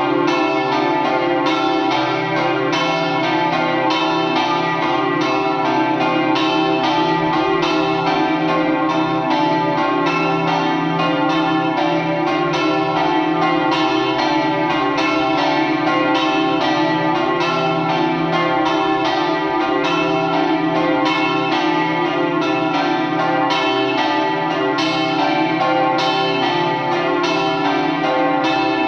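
Church bells of Cavasso Nuovo ringing a full peal: several large bells swinging in the belfry, their strikes overlapping continuously in a dense, steady clangour. It is the festive midday peal (the Friulian "dopli").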